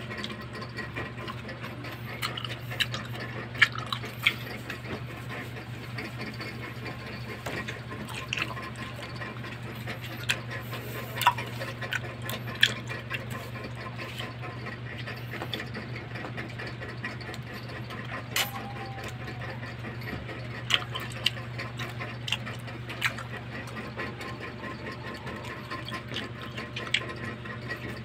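Wet mouth sounds of grapes being bitten off a hanging bunch and chewed: irregular smacks and sharp clicks over a steady low hum.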